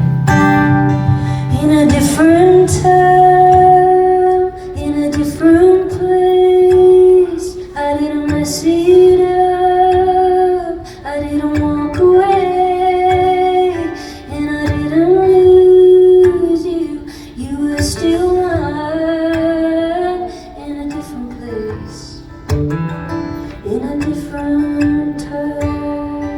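Live song: a woman singing held, sustained phrases with short breaks between them, accompanied by guitar.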